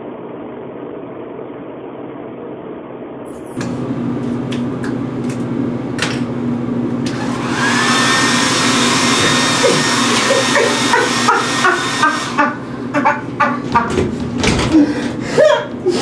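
Handheld hair dryer running, getting louder about 3.5 s in. From about 7.5 s a loud hissing rush of air as it blasts out the baby powder, joined from about 9.5 s by a woman's high-pitched screams in repeated short bursts.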